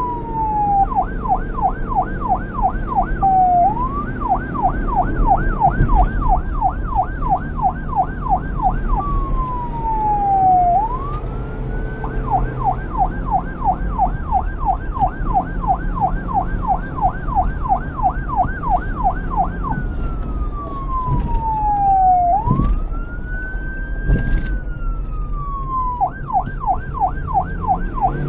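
Police car's electronic siren switching between yelp, a fast warble of about three to four sweeps a second, and wail, slow single falling and rising sweeps, over a low rumble.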